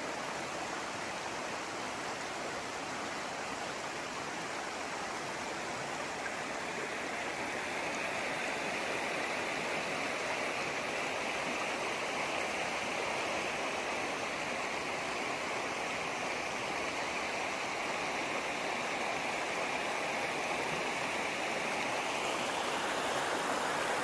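Shallow river running over rocks and stones, a steady rush of water.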